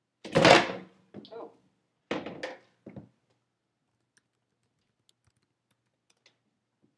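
A loud thunk a moment in, then three shorter, softer knocks over the next couple of seconds, as of something solid being bumped and handled close by.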